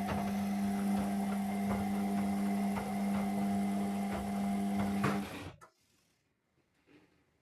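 Zanussi washing machine running with a steady electric hum and scattered small clicks and rattles, which cuts off suddenly about five seconds in, leaving only a few faint ticks.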